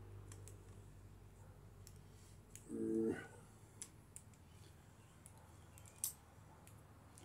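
Faint, scattered clicks and light metal taps of hand tools being handled, a few seconds apart, with a short hum-like vocal sound about three seconds in.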